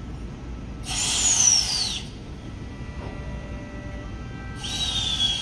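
Two loud bursts of compressed-air hiss from a V-set intercity train at the platform, each with a whistling tone that falls in pitch. The first lasts about a second; the second starts near the end and glides down more slowly.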